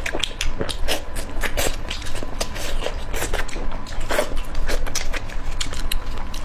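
Close-miked eating: a person chewing and biting, with many irregular, crackly clicks.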